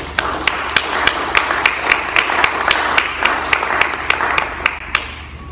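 Audience applauding in a hall, with one person's sharp claps close by, about three a second, over the crowd's clapping. The applause dies away near the end.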